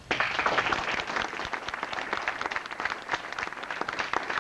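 Audience applauding: many hands clapping at once, starting suddenly as the recited creed ends.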